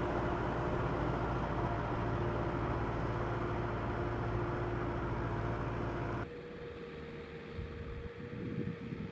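Tractor engine running steadily under load as it pulls a disc harrow through deep mud. About six seconds in, the sound cuts abruptly to a quieter, thinner engine note with wind buffeting the microphone.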